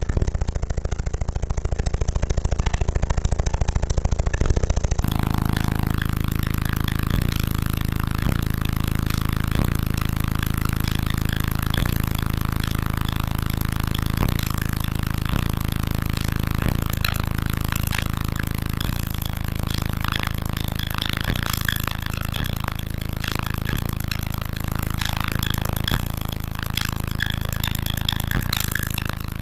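A car-audio wall of sixteen Sundown NSV4 12-inch subwoofers playing a deep bass tone at high power, pushing air hard enough to float a pair of jeans. For the first few seconds the bass pulses rapidly, then it settles into a steady drone, with a noisy rush of air and flapping denim over it.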